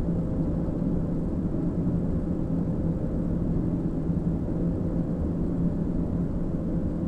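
Steady flight-deck noise of an Airbus A220-300 on short final approach: an even rush of airflow with a low, steady hum underneath.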